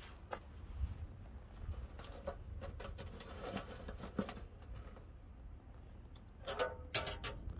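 Faint scattered clicks and light knocks of a dough-sealed metal pot being set down on charcoal in a metal grill box and settled in place, with a short cluster of knocks near the end.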